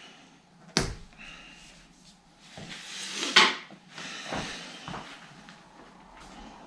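Adhesive tape being pulled and handled while finishing a road bike's handlebar wrap: a sharp click just under a second in, a short loud rip of tape about three and a half seconds in, and a few soft knocks of hands on the bar.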